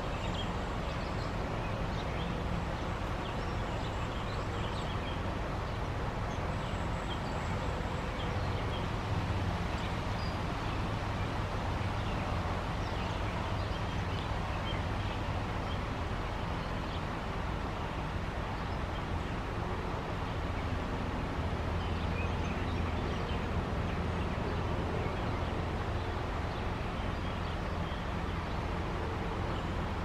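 Steady low background rumble, with faint songbird chirps and calls scattered throughout.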